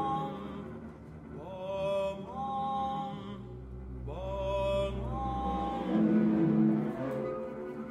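Live contemporary chamber music for voices, timpani and double bass: long held high notes that slide up into pitch, twice, over a low sustained drone.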